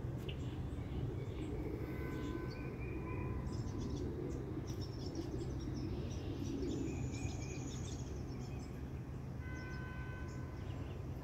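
Wild birds calling outdoors over a steady low background rumble. There are short whistled notes early on and again near the end, and a run of high chirps in the middle.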